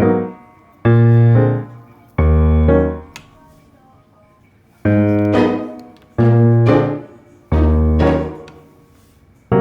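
Background piano music: slow chords struck one at a time, each ringing out and fading, with a pause of about two seconds partway through.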